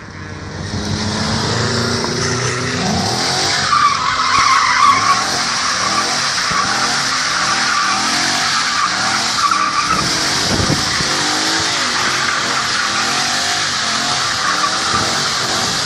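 Rear tyres of a Lada 2107 screeching as they spin in a smoky burnout and donuts. Underneath, its swapped-in BMW M60B30 V8 revs up and down. The tyre screech is loudest about four to five seconds in.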